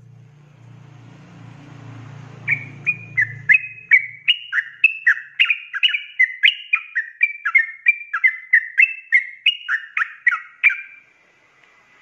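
Yellow-vented bulbul (trucuk) singing a rapid, unbroken 'ropel' run of short, quick up-and-down whistled notes. The notes come about three a second for some eight seconds, starting a couple of seconds in and stopping abruptly near the end.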